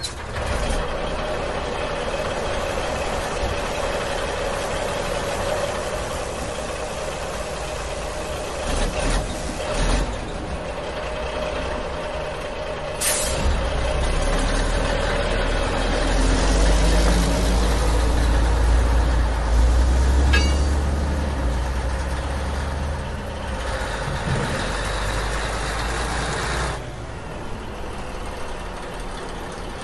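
Heavy truck engine running steadily, with its low rumble growing deeper and louder in the middle, and a sharp sound about thirteen seconds in.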